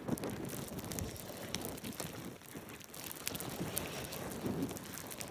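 Wind buffeting the microphone in a snowstorm, a gusting rumble with scattered light ticks.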